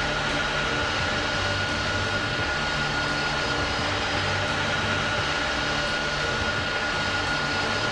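Airbus A330-200 jet engines running steadily: an even rush of engine noise with a high steady whine above it.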